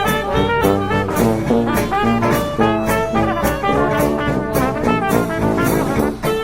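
Upbeat jazzy background music led by brass, with a steady beat.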